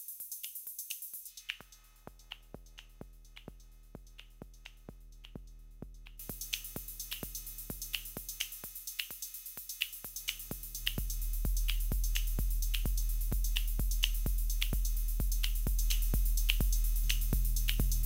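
Electronic drum-machine pattern at about 128 beats per minute, a steady kick with sharp ticks on top, run through a DJ mixer. The treble is cut away about a second and a half in and comes back about six seconds in. A heavy kick and bass are brought up loud about eleven seconds in.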